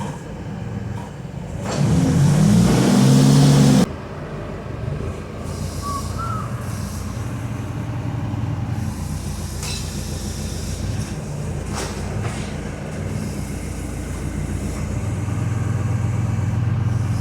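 A vehicle engine running steadily at a low rumble. It is revved hard for about two seconds, just under two seconds in, then settles back to idle.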